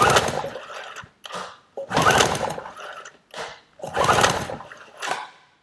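Small outboard motor being cranked over by hand with its recoil pull-start for a compression test: the rattling whirr of the starter and flywheel spinning the engine over, three long, loud pulls about two seconds apart with shorter tugs between. The engine, freed after being seized, turns over freely.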